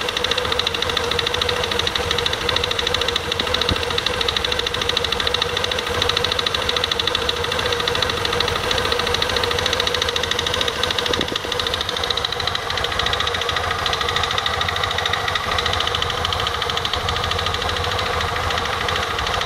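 KYMCO Nikita 300 scooter's single-cylinder engine running with a fast, steady rattle from the CVT transmission, a noise much like the drive belt hitting the case. The owner found after taking the transmission apart that the belt was not the cause. The tone shifts slightly about twelve seconds in.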